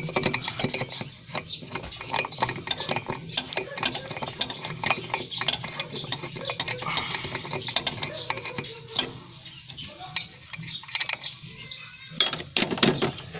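Repeated light metallic clinks, taps and rattles of tools and parts being handled at a car's brake master cylinder while its brake lines are disconnected, with a louder cluster of knocks near the end.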